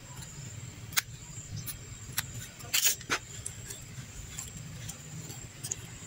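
Scissors snipping old leaves off a potted tomato plant: a few short, sharp clicks, the loudest cluster a little before the middle, with faint handling of the leaves between them, over a steady low hum.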